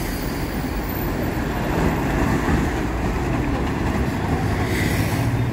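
Steady city street traffic with city bus engines running and tyre noise as vehicles move along the avenue.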